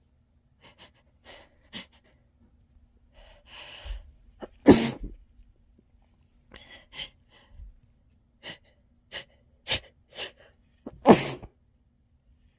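A person sneezing twice, muffled into a tissue: once about five seconds in and again near the end, with short quick breaths and small catches of breath leading up to each.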